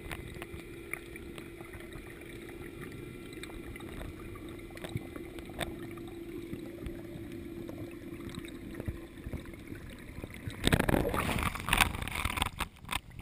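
Muffled underwater noise with a low steady hum and faint ticks, then, about eleven seconds in, loud splashing and sloshing water as the camera breaks the surface beside the surfacing freediver.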